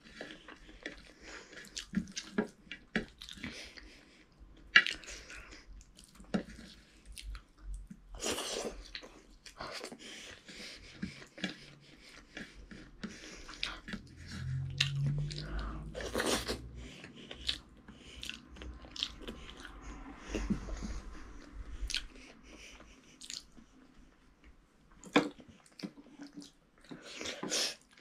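A child chewing and eating rice and chicken curry by hand, with irregular mouth clicks and smacks throughout.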